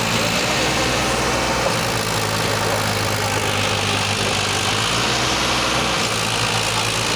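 Tractor diesel engines running steadily and hard, under load as two tractors pull against each other in a tug-of-war.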